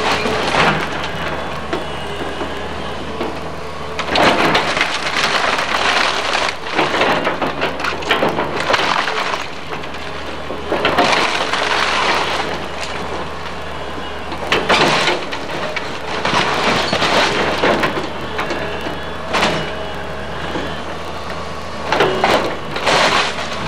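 Komatsu hydraulic excavator running steadily while its bucket crushes and breaks up a pile of wooden house-demolition debris: repeated bursts of cracking, splintering timber every few seconds over the engine.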